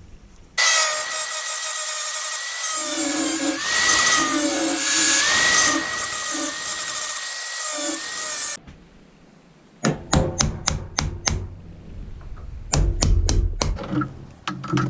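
A power tool runs steadily for about eight seconds with a high whine that wavers slightly in pitch. After a short pause comes a quick run of sharp knocks and scrapes.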